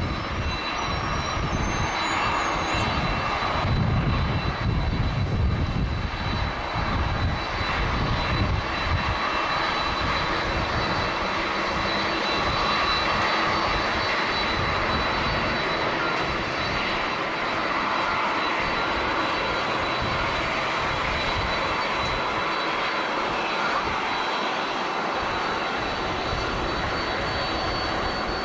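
Jet airliner engines running, a steady loud rush with a thin high whine over it. Low gusty rumbling through the first several seconds is strong wind buffeting the microphone.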